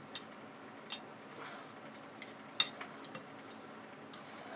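Faint, scattered clicks and taps of someone eating a meal of fried chicken and mashed potatoes, about five or six in all, the sharpest about halfway through.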